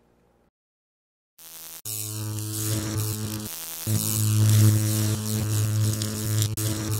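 Electric buzzing hum sound effect for a logo reveal: a loud, steady low hum with a harsh buzz over it. It starts after about a second and a half of silence, cuts out briefly around three and a half seconds in, then comes back louder.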